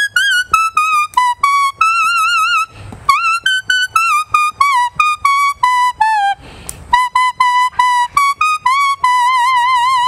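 Leaf whistle (patar bashi), a tree leaf held against the lips, playing a folk melody in high, reedy, trumpet-like notes: short separate notes with a wavering vibrato on the held ones. The tune breaks twice for breath, around three and six and a half seconds in.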